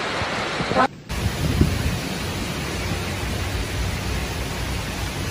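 Heavy rain pouring steadily in a storm, with a low rumble under it and a short break about a second in.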